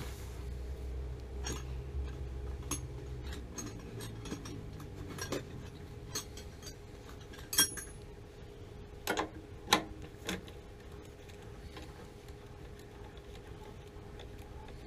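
Scattered light clicks and metallic clinks of hand tools and small fittings being handled during work on a water heater's gas control valve, with a few sharper clicks between about seven and ten seconds in. A low hum sounds underneath for the first few seconds, then stops.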